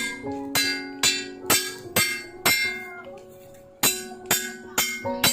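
Hammer striking metal about twice a second, each blow leaving a ringing tone, with a short pause a little after three seconds in.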